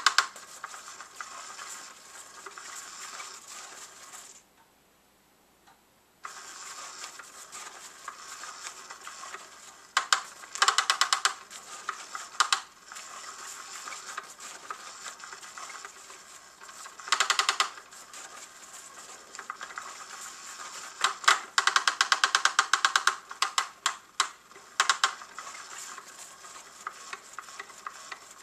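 Motorized Undercover Mouse cat toy running: its small motor whirs and the wand scratches and rustles under the fabric cover. It stops and goes quiet for about two seconds about four seconds in, and several times breaks into bursts of fast rattling scratches as the wand darts about.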